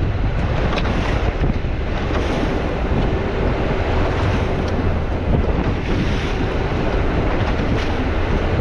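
Wind buffeting the microphone over the steady rush of water around a small boat under way, with a low continuous drone underneath.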